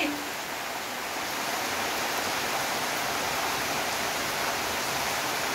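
Steady rain falling on foliage and wet ground, an even hiss.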